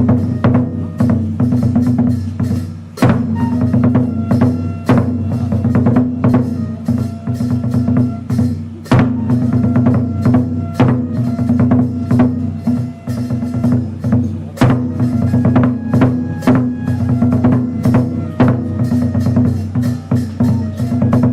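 Kagura music: drum strikes and sharp wooden clacks in a quick, irregular rhythm over sustained low tones, with short higher pitched notes between them.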